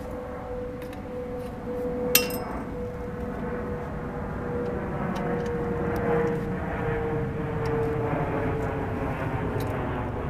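A steady mechanical drone with a held hum that sinks slightly in pitch in the second half, scattered light clicks, and one sharp metallic clink with a short ring about two seconds in.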